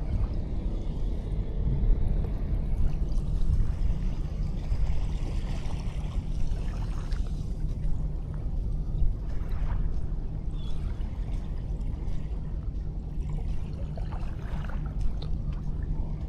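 Sea waves washing onto a sandy beach, the wash swelling and fading, over a steady low rumble.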